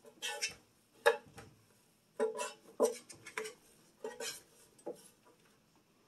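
Bread machine's pan knocking and rattling in the machine as floured hands work a ball of kneaded dough loose and lift it out: a run of short, irregular knocks, about seven, stopping about five seconds in.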